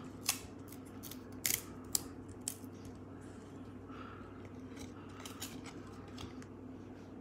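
Glossy trading cards (1992-93 Stadium Club basketball) flipped through by hand, their edges snapping and clicking against each other. There are four sharp clicks in the first two and a half seconds, then softer ticks and slides, over a faint low hum.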